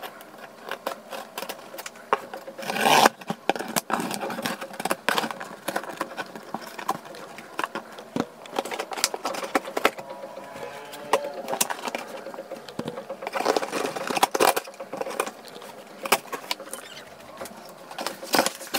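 A box cutter slicing the packing tape on a cardboard box and the cardboard flaps being pried open: an irregular run of scrapes, rips and sharp clicks, with a louder rip about three seconds in.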